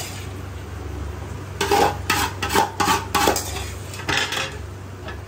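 A metal spoon clinking and scraping against metal pots while masala is spooned onto rice, about six sharp clinks in a cluster from about a second and a half in until past four seconds. A steady low hum runs underneath.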